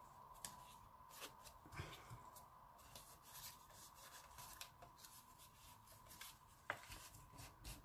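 Faint rustling and light taps of cardstock being handled and turned over in the hands, with a sharper tap near the end.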